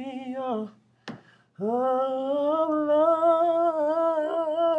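A man singing unaccompanied: one phrase ends just under a second in, a brief click follows, then from about a second and a half in he holds one long note with vibrato.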